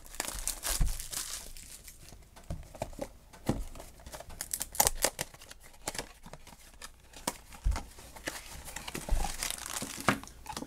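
Small cardboard blind box being opened by hand and the black foil bag inside it crinkling and rustling. The sound is a dense run of irregular crackles, with a few soft thumps.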